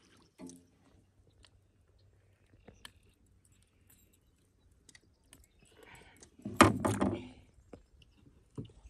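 Scattered small clicks and taps of handling inside an aluminium jon boat. About six and a half seconds in comes a short burst of sharp knocks and rattles, the loudest sound.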